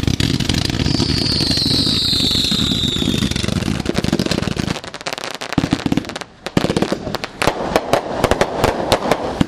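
Consumer firework cake firing: a loud steady rush of launches with a high whistle that falls in pitch over the first few seconds. After a short lull about five seconds in comes a run of rapid sharp cracks and pops from bursting crackling stars.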